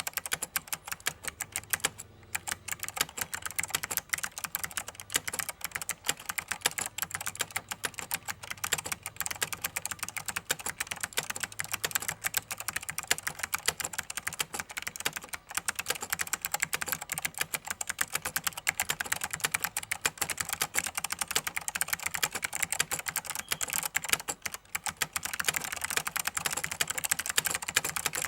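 Mechanical keyboard with clicky tactile SKCM White Alps switches being typed on at a brisk pace: a dense, continuous stream of key clicks with a couple of brief pauses, getting a little busier and louder near the end.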